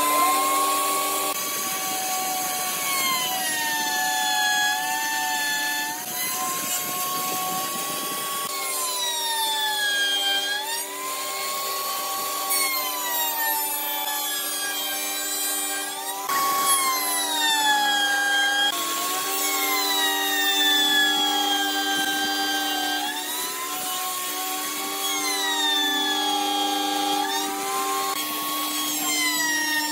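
1850-watt electric wood router running and cutting wood, its motor whine dropping in pitch as the bit bites into the cut and rising again as it comes free, over and over.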